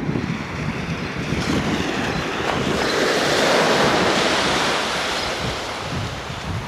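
Wind buffeting the microphone, under a broad rushing noise that swells to its loudest about halfway through and then fades.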